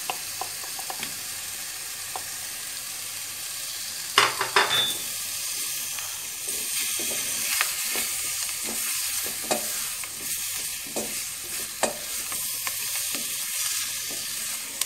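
Butter, flour and onions sizzling in a stainless steel pot while cubed boiled beetroot is scraped in and stirred with a wooden spoon. The spoon knocks against the pot now and then, loudest in a cluster about four seconds in.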